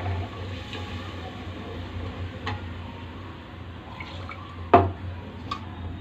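Masala sizzling in a pot as it is stirred with a ladle, with a few clinks of steel utensils. The loudest, a sharp metal clink, comes about three-quarters of the way in.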